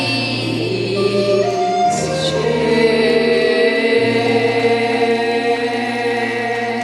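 Three women singing a song together through microphones, holding long notes over a backing track with a steady bass line.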